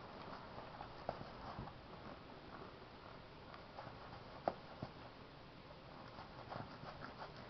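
French bulldog puppy gnawing and tugging at a leather slipper: faint, scattered clicks and scuffs, with a sharper click about four and a half seconds in and a small flurry near the end.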